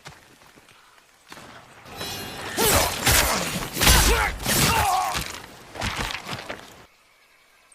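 Katana sword-fight sound effect: a quick flurry of steel blades clashing and scraping, with ringing that slides in pitch. It builds in softly about a second in, is loudest from about two and a half to six and a half seconds in, then stops.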